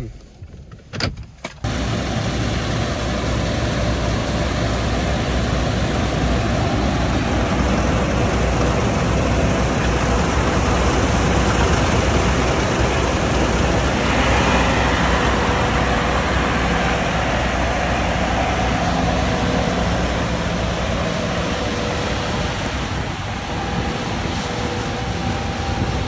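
A vehicle engine running steadily under a constant rushing noise, cutting in suddenly about a second and a half in.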